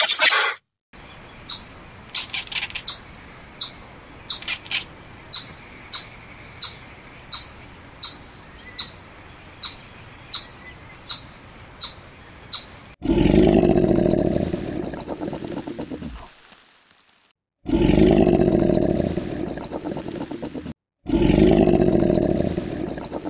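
A short burst at the very start. Then a chipmunk's chip call: a steady series of sharp, high chirps, about one and a half a second for some ten seconds. Then a crocodile's bellow: three long, deep, loud calls of about three seconds each.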